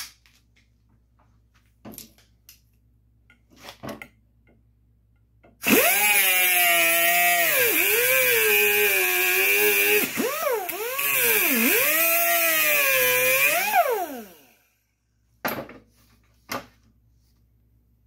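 Handheld angle grinder cutting through a 5/16-inch steel bolt held in locking pliers: a loud whine that dips in pitch each time the wheel bites into the metal, then winds down and stops after about nine seconds. A few short clinks and knocks of the bolt and pliers come before and after it.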